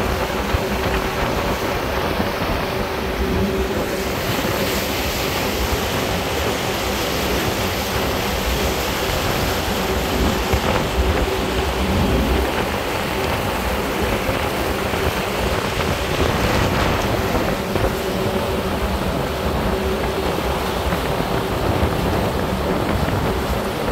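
Churning water of a moving tugboat's wake rushing steadily, over the constant hum of the tug's engines, with wind buffeting the microphone.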